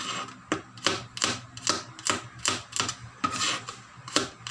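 Kitchen knife slicing garlic cloves on a plastic cutting board: the blade knocks on the board in a steady rhythm of about two to three chops a second.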